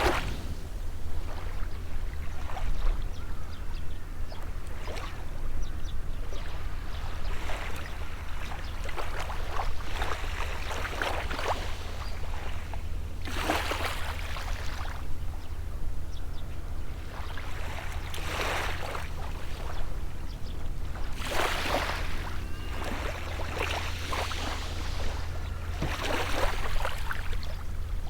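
Small sea waves washing up and breaking on the shore, a louder wash every few seconds over a steady low hum.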